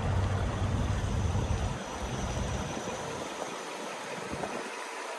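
1980 International Scout II engine idling with a steady low hum. About two seconds in, the hum drops away and a steady hiss remains.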